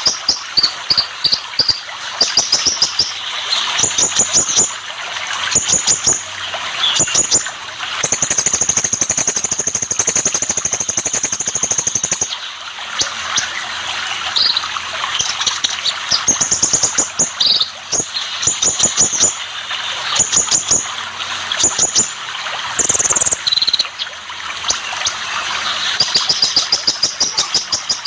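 Kolibri ninja sunbird chirping and twittering in quick, high-pitched phrases, with one long, steady high trill about eight seconds in, over a continuous rush of running water.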